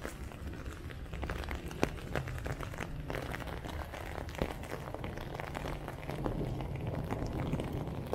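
Heavy hail falling, with the stones striking hard surfaces as a dense, irregular patter of sharp ticks and a few louder cracks over a steady hiss.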